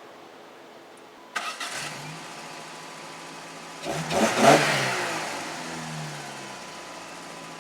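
Car engine cranking and catching, then revved once and settling back to a steady idle.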